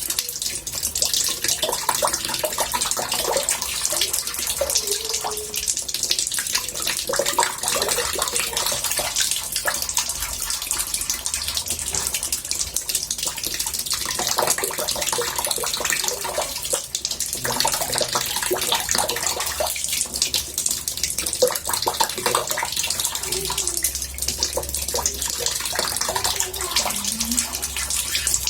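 Water running into a bathtub: a steady, continuous splashing hiss.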